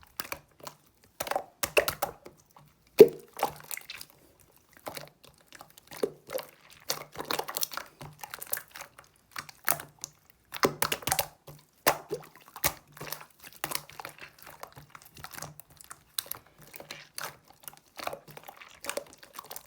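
Irregular crunching and crinkling clicks close to the microphone, coming in quick clusters with short pauses.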